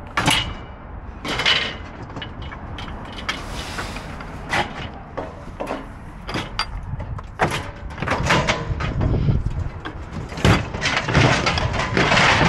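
Metal store shelving parts clanking and scraping against each other and the truck bed as they are loaded into a pickup, with a long run of sharp clanks that grows busier in the second half.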